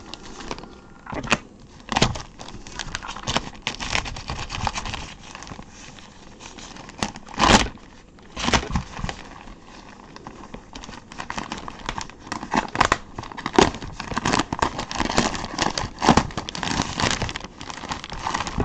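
Paper wrapping of a mailed package being torn open and crumpled by hand: irregular crackling rips and crinkles, the loudest about seven and a half seconds in.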